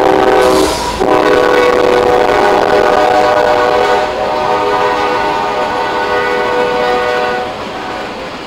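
CSX freight locomotive's air horn sounding a chord, with a short break about a second in, then held and dropping away near the end as the locomotive pulls ahead. Under it, the steady rolling noise of the passing flat cars.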